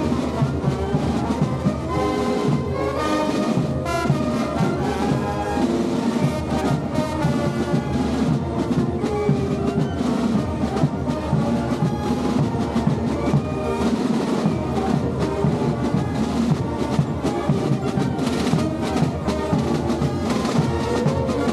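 Carnival brass band with drums playing a Gilles' dance tune for the rondeau, brass over a steady run of drum beats.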